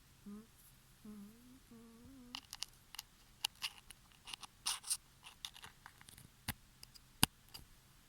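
Three short, humming snore sounds from a sleeper, each slightly rising in pitch. After them, a run of small sharp clicks and crackles takes over.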